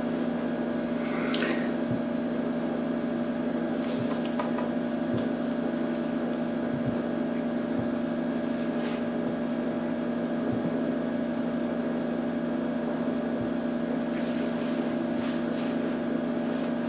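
Steady hum of a running room appliance, holding several fixed pitches, with a few faint taps of a paint pen dotting paint onto a rock.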